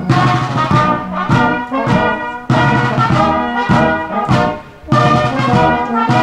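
Brass band music: sustained notes of a melody changing every fraction of a second, with a short break a little past halfway.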